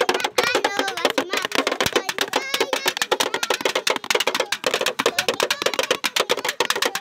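Makeshift drums of tin boxes and a cardboard box beaten with sticks and hands in a fast, dense clattering beat.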